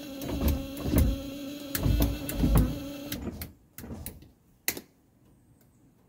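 Electric power-window motor in a 1984 Mercedes-Benz 300D running as the console window switches are tested, a steady hum with a few dull thumps that stops about three seconds in. Several sharp clicks of the switches follow.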